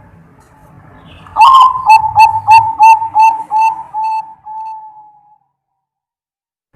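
Zebra dove (perkutut) cooing: a rising opening note, then a run of about a dozen short coos, roughly three a second, that slow and fade out.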